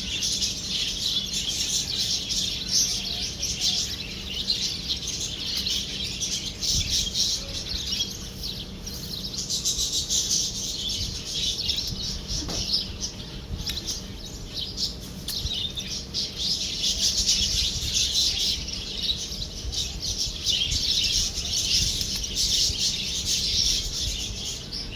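Birds chirping and twittering without a break, a dense, high chatter that swells louder at times.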